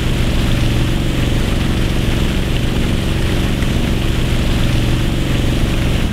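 An engine running steadily, with a thick stream of pumped water gushing out and splashing onto the lake surface as a swamped speedboat is pumped dry.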